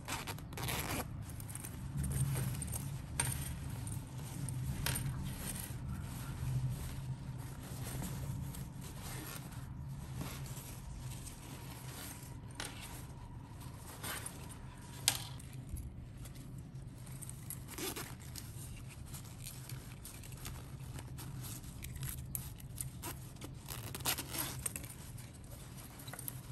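Close handling of foldable fabric reusable shopping bags: rustling, scraping and crinkling as they are pulled from their pouches and shaken open, with scattered light clicks and one sharp click about halfway through.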